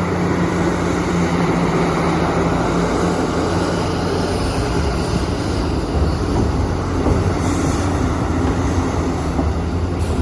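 A JCB heavy machine's diesel engine running steadily with a low hum.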